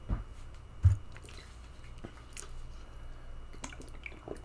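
Close-up mouth sounds of chewing and swallowing, with two dull thumps in the first second, the second the loudest. Near the end come small clicks of a drink taken from a plastic water bottle.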